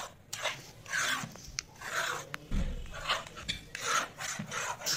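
A spoon stirring and scraping a thick mango and vermicelli custard mixture around a metal pan: a rasping scrape about twice a second. There is a dull thump about halfway through.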